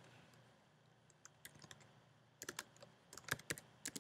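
Typing on a computer keyboard: faint key clicks in a quick run, starting about two and a half seconds in after a near-silent start.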